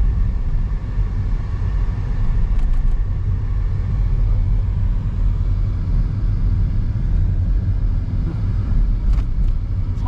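Steady low rumble of a car driving, heard from inside the cabin: engine and tyre noise on the road.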